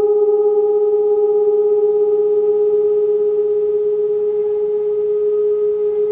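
A sound-bath instrument holding one steady, nearly pure ringing tone, with fainter overtones above it. The tone does not waver or die away.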